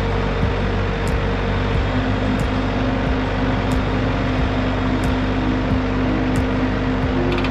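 Engine running steadily under a constant hum, with a faint sharp tick about every 1.3 seconds; one tone of the hum drops lower about two seconds in.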